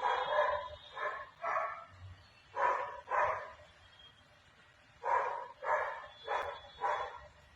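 A dog barking repeatedly, about nine loud barks in runs of two or three roughly half a second apart, with short pauses between the runs.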